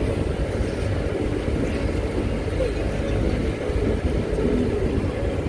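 Steady low rumble of a moving vehicle, with no sudden sounds.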